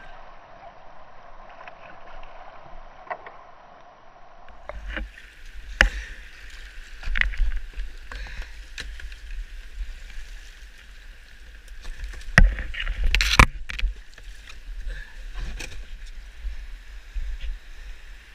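Whitewater kayak running a rocky creek: steady rushing water, with a low buffeting rumble on the microphone from about four seconds in and a scatter of sharp knocks from the plastic boat and paddle, loudest twice in quick succession past the middle.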